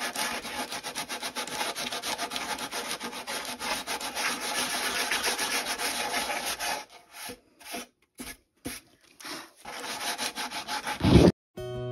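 Sandpaper rubbing on wood, smoothing the edge of a rough-cut hole: quick back-and-forth strokes, several a second. About seven seconds in they thin out to a few separate strokes with pauses, and there is a short loud knock just before the end.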